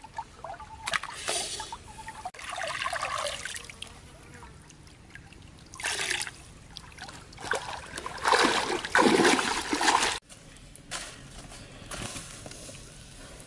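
Water splashing and sloshing in a clay pot as crabs are rinsed by hand, then swirled and poured off, in several bursts. The loudest and longest comes about eight to ten seconds in and stops abruptly.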